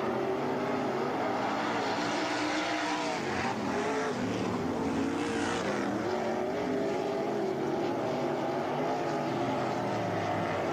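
Several winged sprint cars' V8 engines running hard on a dirt oval, layered and overlapping, each rising and falling in pitch as the cars lap. About halfway through the sound gets brighter and harsher for a couple of seconds.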